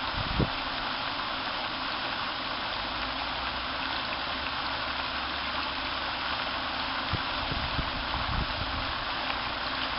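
Pond fountain's vertical spray falling back onto the water in a steady, even splashing hiss, with a few brief low bumps about half a second in and near the end.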